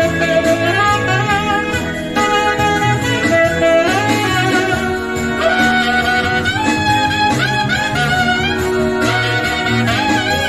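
Saxophone playing a melody over a backing track with a bass line.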